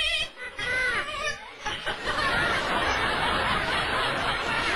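White cockatoo calling: a quick wavering trill, then a rising-and-falling call about a second in. From about two seconds in comes a continuous, dense, noisy run of chattering sounds.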